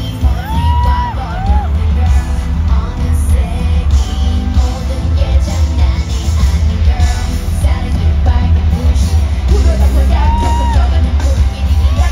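Live K-pop girl-group concert heard from the crowd: women singing into microphones over a heavy bass backing through an arena PA, with fans yelling along.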